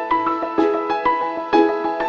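Background music: a piano-led instrumental with struck notes in a steady, gentle rhythm.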